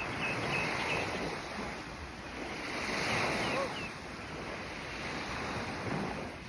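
Sea water washing and lapping in the shallows, with wind buffeting the microphone.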